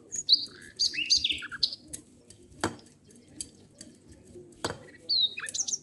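Small birds chirping in quick, high calls that slide up and down, in two spells near the start and near the end. In between come two sharp clinks from a steel cake tin being brushed with oil.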